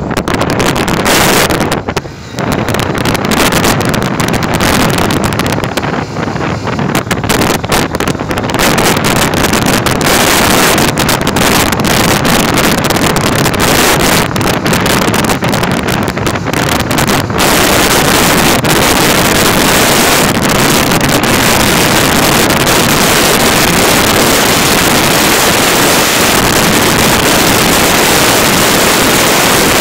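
Wind rushing over the microphone of a moving motorcycle, with the bike's running and road noise beneath it. It comes in gusts at first and turns steady from a little past halfway through.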